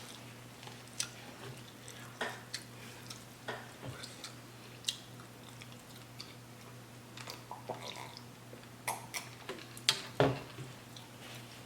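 Close-miked eating: irregular wet chewing and mouth clicks, with a few louder ones about three quarters of the way through.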